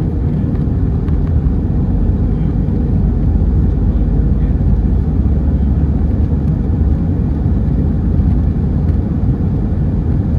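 Airbus A320 cabin noise heard from a window seat: a steady, loud low rumble of jet engines and airflow.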